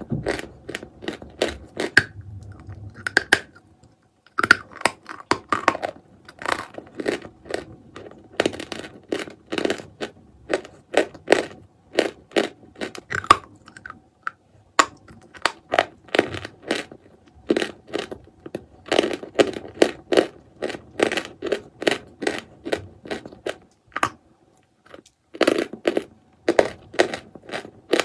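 A person biting and chewing hard blocks of chalk: a run of sharp, crisp crunches, several a second, with short pauses between bites.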